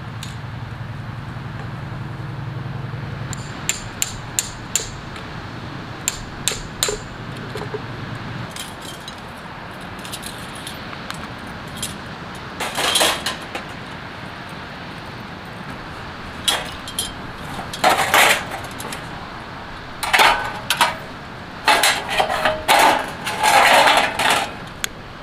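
Steel parts of a small folding fire pit clinking sharply a few times, then rattling and scraping in louder bursts as its legs and perforated grate are fitted together.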